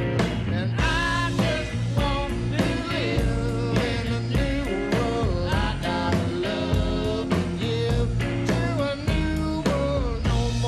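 Live rockabilly band playing: twangy electric guitar over a steady drum beat and bass.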